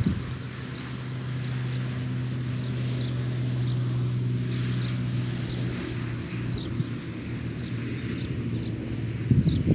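A steady low engine hum for about six seconds that then fades out, with small birds chirping throughout and a few knocks near the end.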